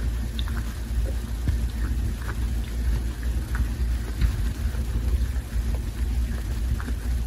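Tabby cat grooming himself: irregular tongue-licking clicks, one or two a second, over a steady low rumble.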